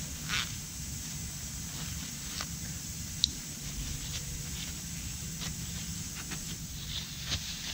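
Paper towel crinkling as it is wrapped and tucked by hand, in short scattered rustles, with one sharp click a little past three seconds, over a steady low hum.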